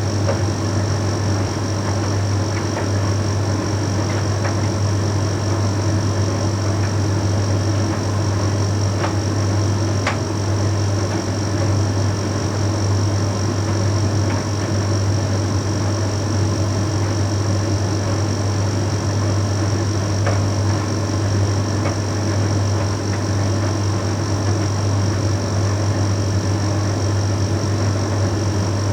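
Bosch Series 6 heat pump tumble dryer running mid-cycle: a steady low hum with a faint high whine over it, and a few light ticks now and then.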